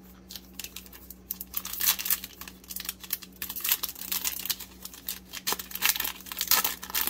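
Foil wrapper of a 2020 Donruss Optic football card pack being torn open and crinkled by hand: dense crackling that thickens about a second in and runs on in uneven rustles.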